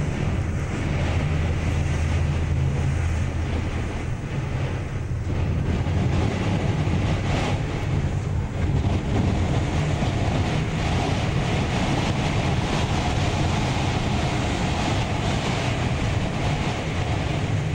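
A ship's engine drones steadily under a loud rush of wind on the microphone, with wind-driven spray and rough water hissing.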